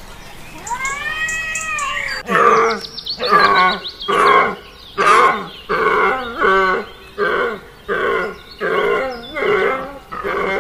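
A cat meows once, then a long run of short, pitched animal calls repeats evenly, about one every three-quarters of a second.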